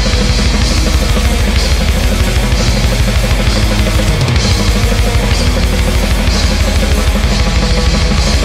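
Loud, dense black metal song: a drum kit with bass drum, snare and cymbals drives under guitar and bass.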